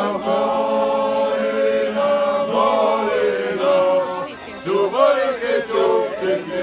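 A group of men singing Seto leelo in close polyphonic harmony, several voices holding long notes together. About four and a half seconds in the singing briefly drops away before a new phrase starts with sliding notes.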